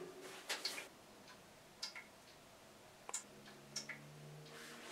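Near-quiet room with a few faint, irregularly spaced clicks and ticks, and a faint low hum in the last second.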